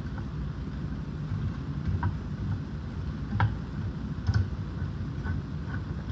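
Four or five sharp, irregularly spaced metallic clicks and taps from a custom-made valve spring compressor being handled and worked on a valve, over a steady low background rumble.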